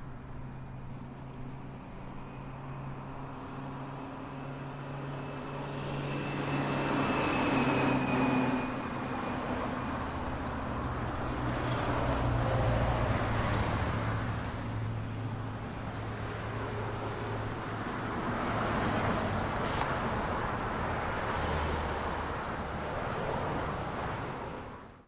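Car engine and road noise: a steady low hum with a rush that swells and fades several times, as of driving or passing traffic. It cuts off abruptly at the end.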